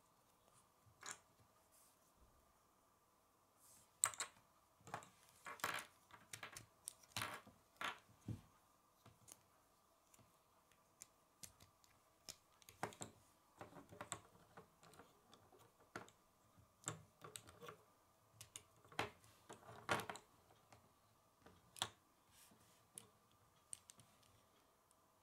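Small plastic Lego pieces clicking and snapping together as they are handled and pressed into place: irregular sharp clicks, now in quick clusters, now singly.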